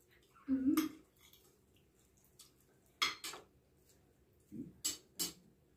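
Scattered clinks and clicks of plates and cutlery at a meal table: a short clatter about half a second in, a sharp click about three seconds in, and three quick clicks near the end.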